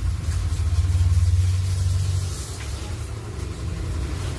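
Low, steady rumble of a motor running, louder for the first two seconds or so, then easing a little.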